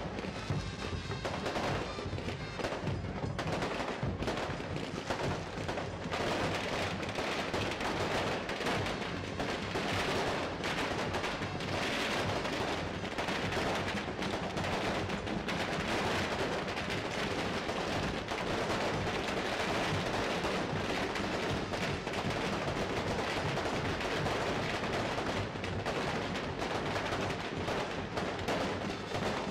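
A long string of firecrackers going off in rapid, continuous cracks and bangs, with music playing underneath.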